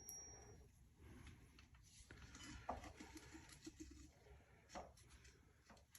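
Near silence with a few faint, short clicks and light handling sounds, as small parts are handled.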